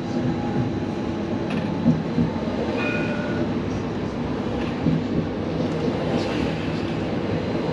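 Edinburgh tram (CAF Urbos 3 light rail vehicle) running along street track, heard from inside: a steady rolling rumble and motor hum, with a short high tone about three seconds in.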